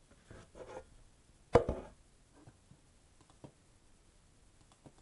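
A single sharp knock about a second and a half in, with faint handling noises before it and a few small clicks after.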